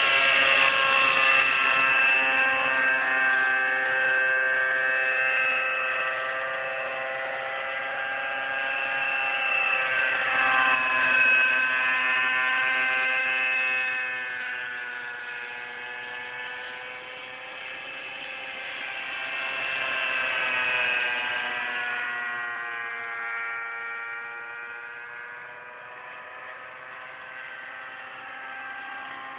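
Align T-Rex 600 nitro radio-controlled helicopter in flight: its glow engine and rotors make a steady high whine, swelling and fading as the model flies nearer and farther, the pitch bending a little with it.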